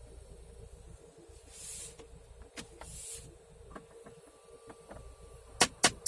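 Jeep Compass heater flap actuator motor behind the dashboard: a few faint clicks and two short hisses, then near the end a loud rapid knocking, about four knocks a second. The knocking is the sign of the failing flap motor.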